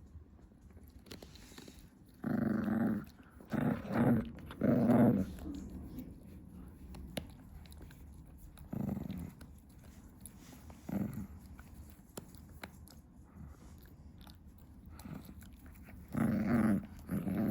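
Chihuahua growling in short pitched bursts while chewing a stick, with faint gnawing clicks between the growls. The growls cluster about two to five seconds in, come singly around nine and eleven seconds, and return near the end.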